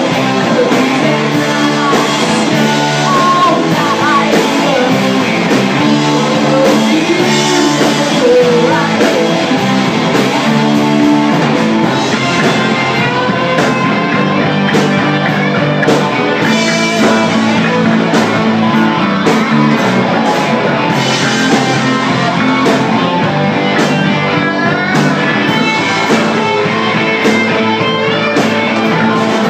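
A live band playing a song, led by guitar, with a voice singing at times.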